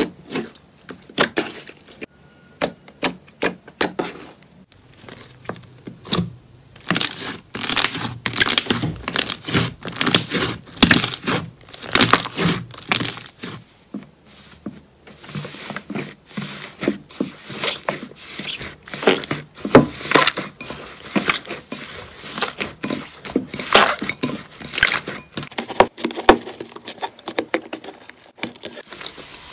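Slime being squeezed and pressed by hand, giving off sharp clicks and crackles: sparse at first, then a dense, irregular run of crackling from about six seconds in.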